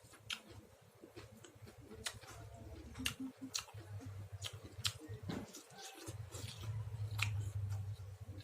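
Close-up eating sounds of chicken being chewed: irregular wet clicks and smacks of the mouth and teeth.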